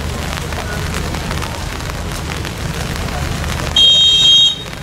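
Volleyball referee's whistle: one shrill, steady blast of just under a second near the end, over a steady hubbub of crowd chatter.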